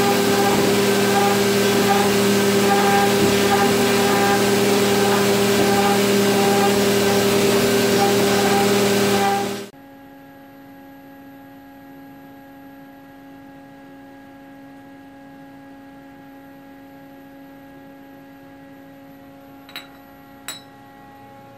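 A Haas CNC mill running, its end mill cutting a metal paintball marker body on the 4th-axis rotary: a loud, steady machining sound with a tone that pulses about every two-thirds of a second. It cuts off suddenly about ten seconds in, leaving a quiet steady machine hum, with two short clicks near the end.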